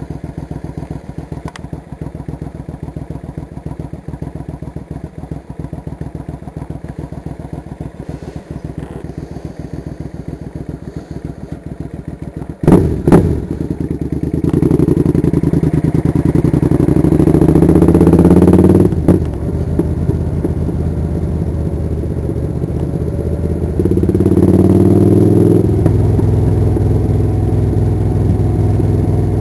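Suzuki Intruder 800's V-twin engine running while riding, pulsing steadily at first. About halfway through come two loud knocks, then the engine pulls harder with a climbing pitch, drops back briefly, and climbs again.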